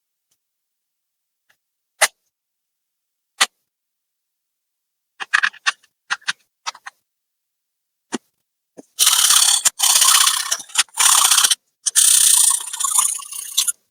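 Hard clicks and rattles of laptop parts being handled: two single clicks, then a quick cluster of clicks, then about five seconds of dense ratcheting and scraping with short breaks.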